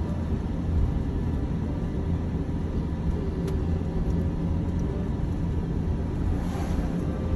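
Steady low rumble of road and engine noise inside a moving vehicle.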